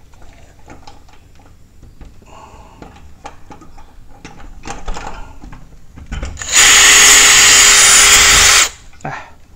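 DeWalt 18V cordless drill with a 3 mm bit drilling out a pop rivet on a sliding door's lock plate. It runs at a steady speed for about two seconds near the end, after a few seconds of light handling clicks. The sound marks the rivet head being drilled away so the lock can be taken out.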